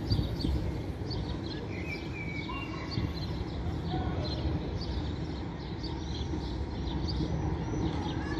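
Songbirds chirping repeatedly in the trees, with a few longer whistled notes about two seconds in, over a steady low rumble of street noise.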